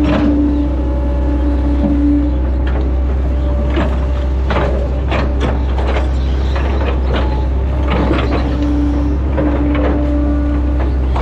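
Hitachi Zaxis 110 excavator heard from the cab: its diesel engine runs with a steady low drone as the arm and bucket work. A hydraulic whine holds for a couple of seconds at the start and again near the end, with scattered clanks and knocks from the machine in between.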